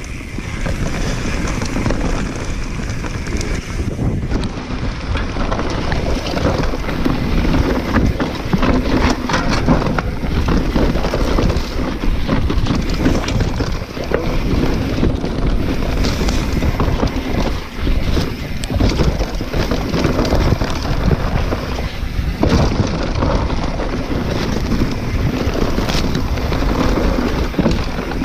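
Mountain bike on a fast enduro descent down a dirt trail: tyres rolling over earth and the frame and parts rattling over bumps and roots, with wind rushing over the camera microphone.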